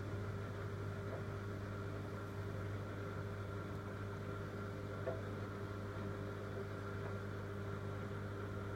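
Siemens iQ300 WD14H320 washer dryer buzzing steadily at the start of a drying cycle, a low hum that stops at the very end. The buzz comes from a warped dryer fan, probably caused by fluff build-up.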